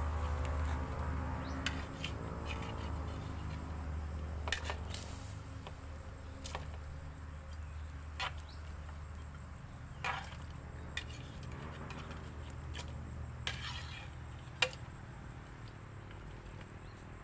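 A metal ladle clinking and knocking against a plate and a large cooking pot as pieces of fish are slid into the pot and stirred: scattered single clinks every second or two, over a low steady rumble.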